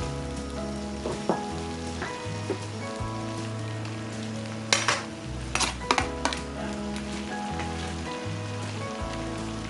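Food sizzling as it fries in a pan, with a few sharp clinks of a utensil against the pan about halfway through, over background music.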